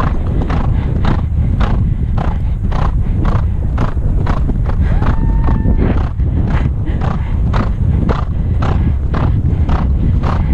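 Horse galloping on grass, its strides and breaths falling in an even beat of about two and a half a second, under heavy wind rumble on the microphone. A short steady tone sounds briefly about five seconds in.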